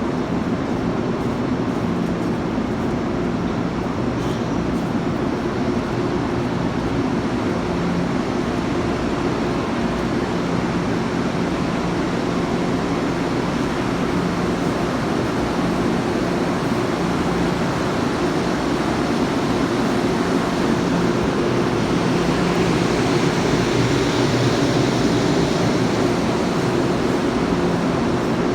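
Electric commuter trains standing at the platform: a steady hum with a few low droning tones. It grows a little louder, with a hiss added, about two-thirds of the way through.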